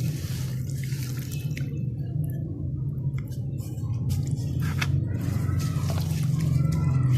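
Wet charcoal sand slabs crumbling and dripping into water: scattered small crackles and drips, sparser for a moment a couple of seconds in, over a steady low hum.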